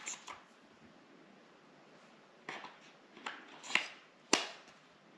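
A few scattered plastic clicks and taps of small hard-plastic items being handled: the camera's batteries and their charging case. The sharpest click comes a little after four seconds.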